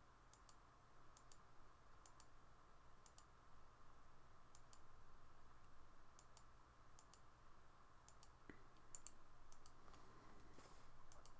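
Faint computer mouse clicks, each a quick press-and-release pair, about once a second, as objects are picked one after another for a fillet in CAD software; a steady low hum lies underneath.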